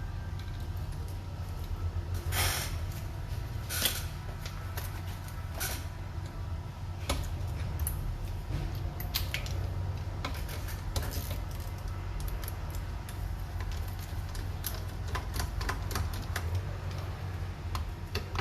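Irregular light clicks and knocks of a hand tool and small parts being handled while a ventilator is taken apart, with a few louder knocks, over a steady low hum.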